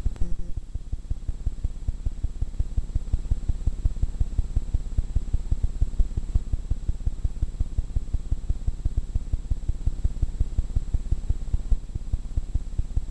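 A miniature pinscher panting fast and evenly, about five or six short breaths a second, heard muffled and close.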